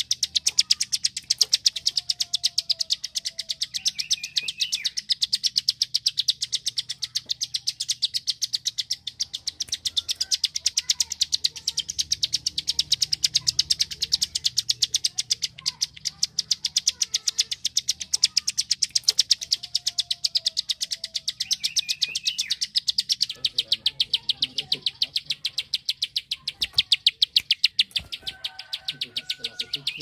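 Prinia (prenjak klik) giving its rapid-fire clicking call: a continuous run of sharp, evenly spaced clicks, several a second, with a few fainter chirps beneath.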